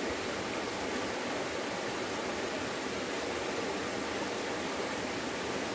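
Steady rushing of a small forest stream, an even hiss of flowing water with no breaks.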